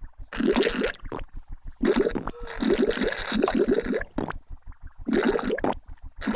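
Cartoon sound effect of noisy drinking: loud gurgling slurps in four bursts with short gaps between them, the sound of juice being drunk noisily rather than quietly.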